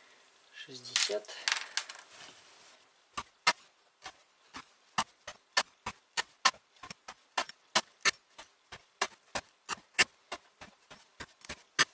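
Carpenter's axe chopping straight down through hemp rope onto a soft cedar board, cut after cut. It makes a quick, even run of sharp knocks, about three or four a second, starting about three seconds in.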